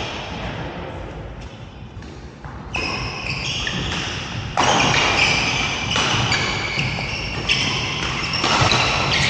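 Badminton hall noise during play: thuds and shuffling footwork on court, quieter for a moment about a second in and louder again from about halfway through.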